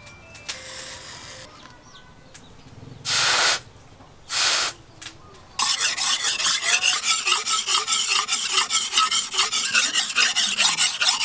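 A forged steel meat cleaver's blade being sharpened on a sharpening stone: rapid, even back-and-forth scraping strokes of steel on stone, starting a little past halfway. Earlier there are two short hisses.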